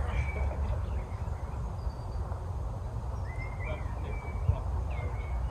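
Woodland birds calling in short notes, once near the start and several times in the second half, over a steady low rumble.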